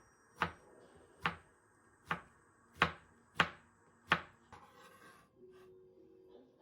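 Kitchen knife chopping on a cutting board in six slow, separate strokes, stopping about four seconds in, followed by softer handling noises.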